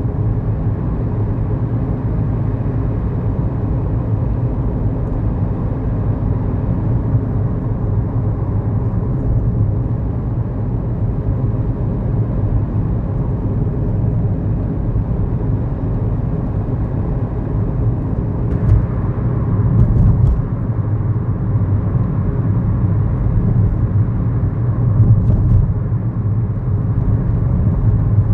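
Cabin sound of a 2011 Kia Morning with its 999 cc four-cylinder SOHC engine and five-speed manual gearbox: a steady engine hum and tyre rumble while driving, the note shifting slightly about two-thirds of the way in.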